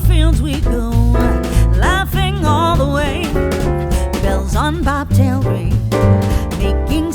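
Background music with drums, a bass line and a wavering lead melody.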